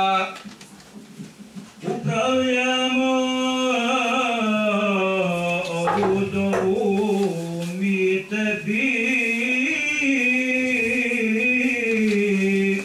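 A lone man's voice chanting without accompaniment in long held notes that waver and slide: Islamic devotional chant. The chant comes in about two seconds in, after a short pause for breath.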